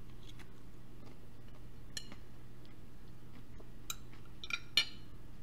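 A metal fork clicking against a plate a few times, the loudest click near the end, over a faint steady low hum.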